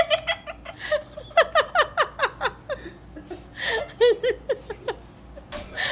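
Laughter: a quick run of short, falling "ha" syllables about a second and a half in, and a few more near the middle.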